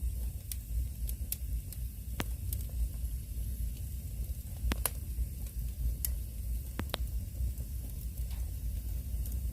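Burning firewood crackling, with irregular sharp pops and snaps over a steady low rumble and hiss.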